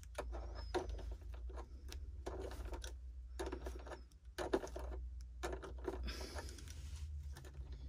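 Irregular small clicks and rattles of a 5.5 mm socket working the propeller nut loose on a bait boat's motor shaft, over a low steady hum.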